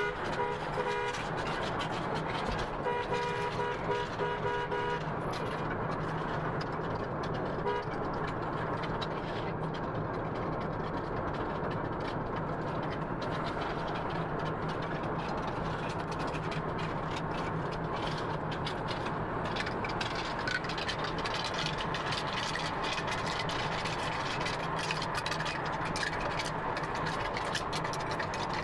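Car horn sounding in two runs of quick beeps in the first five seconds, over the steady road and engine noise inside a minivan cabin at highway speed.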